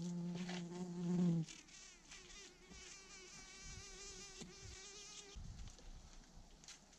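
A flying insect buzzing close to the microphone. The buzz is loud and steady for about a second and a half, then goes on fainter with a wavering pitch until it fades away.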